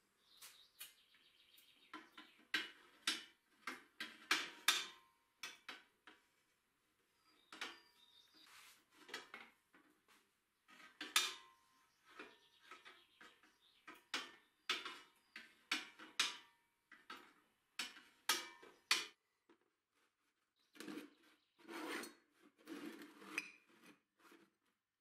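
Steel workpieces clinking and knocking as they are handled and set down: an irregular series of sharp metallic taps and clanks, some briefly ringing, with short pauses between.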